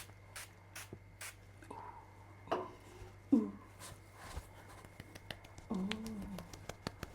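Soft, irregular clicks and taps from handling a bottle of rice toner, with a few brief murmured vocal sounds.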